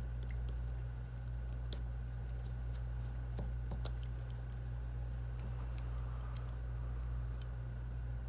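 Scattered light clicks and ticks of a small screwdriver and tiny screws against a phone's frame, over a steady low electrical hum. One sharper click comes a little under two seconds in.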